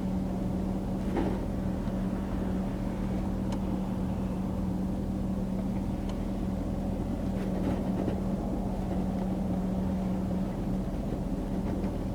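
Steady hum of a car running slowly or idling, heard from inside the cabin, with a few faint scattered ticks.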